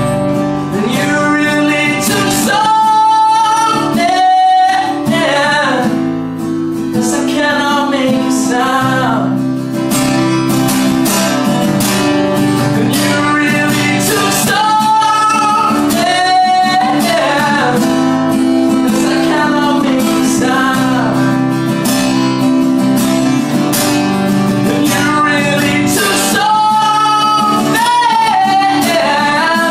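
Acoustic guitar strummed steadily in a live unplugged performance, with a voice singing held, sliding phrases over it.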